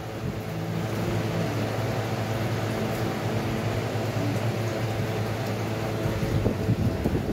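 A steady mechanical hum, several even tones held together, runs under faint taps of a knife cutting chillies on a stone board.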